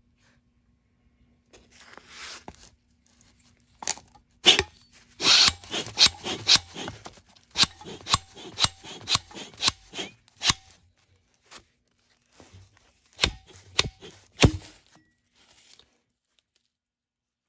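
Wire retainer ring being pried up and spun out of its groove in a hydraulic cylinder's gland: a long run of sharp metal clicks and scraping, in two bursts with a pause between them.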